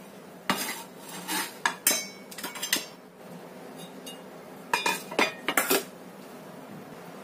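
Kitchenware clinking and knocking: a run of short knocks and clinks, a pause, then another quick cluster of them about five seconds in.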